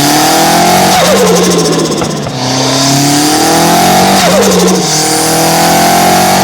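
Turbocharged Mitsubishi Lancer Evolution accelerating hard, its engine note rising, with turbo flutter each time the throttle is lifted: about a second in, again around four seconds in, and near the end.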